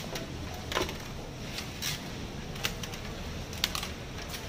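Scattered sharp clicks and taps, about five in all, from hands working at a fruit-prep counter with a knife, cutting board and clear plastic fruit boxes. A quick pair of clicks near the end comes as the boxes are stapled shut. A steady low background hum runs underneath.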